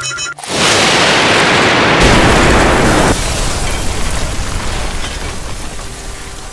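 Cartoon explosion sound effect: a sudden loud blast about half a second in, a deeper rumble from about two seconds, then a long fade.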